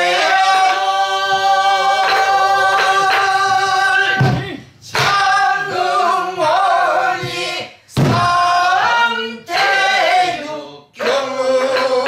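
A group of men and women singing a Korean folk song together, holding long wavering notes with short breaks between phrases. Now and then a sori-buk barrel drum is struck.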